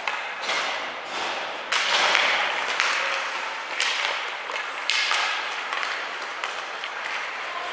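Ice hockey play on the rink: skate blades scraping the ice in hisses of about a second each, and sticks and puck clacking, with one sharp crack about four seconds in.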